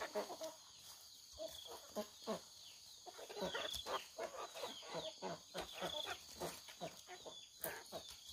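Chickens clucking, a steady run of short calls coming several a second.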